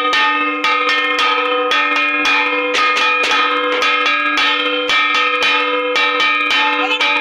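Metal puja bells rung rapidly and continuously, about three strokes a second, their ringing tones overlapping into a steady peal.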